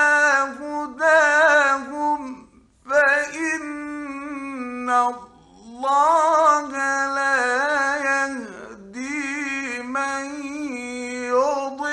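A man chanting the Quran in a melodic, ornamented recitation style: long held phrases with wavering, decorated notes, broken by three short pauses for breath.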